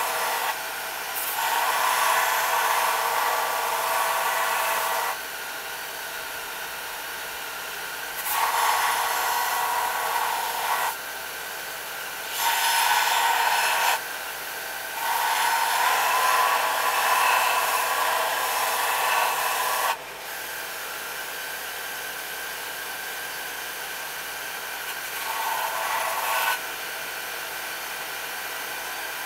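Electric grinder running with lawnmower-blade steel pressed to it in several grinding passes of one to five seconds each. Each pass turns louder and harsher than the steady running between them. The steel is being rough-ground into a Bowie knife blank.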